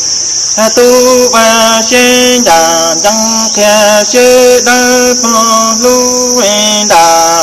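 A man chanting Hmong kwv txhiaj sung poetry, each syllable held on a level note for about half a second and stepping between a few pitches, with short breaths between phrases.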